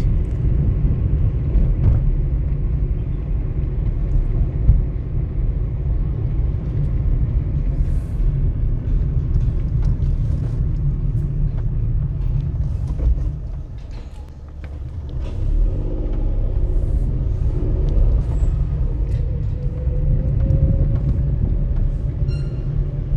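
Car driving at low speed, heard from inside the cabin: a steady low rumble of engine and tyres that eases off briefly about two-thirds of the way through, with a faint rising whine near the end.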